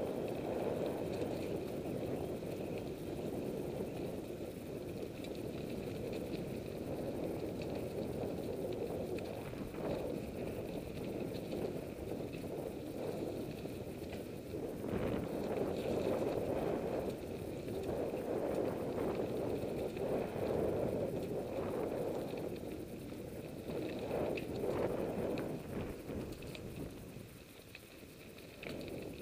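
Mountain bike riding over dirt singletrack, heard from a camera mounted on the bike or rider: steady tyre rumble with the bike and camera mount rattling and knocking over bumps, easing briefly near the end.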